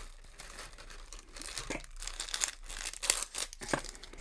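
Crinkling and rustling of a sheer organza gift bag and crinkle-paper filler being handled and opened by hand, with a few sharper crackles through the second half.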